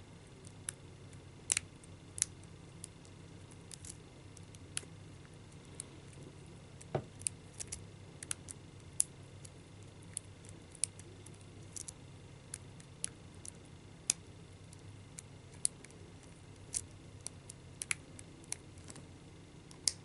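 Small, irregular metallic clicks and scrapes of a hook pick and tension wrench working the pins of a cheap padlock under heavy tension, with a slightly louder knock about seven seconds in.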